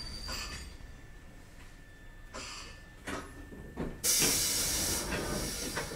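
Kotoden 1070 series train settling to a stop: a few knocks, then about four seconds in a sudden loud hiss of compressed air from its pneumatic system that lasts about a second and tails off.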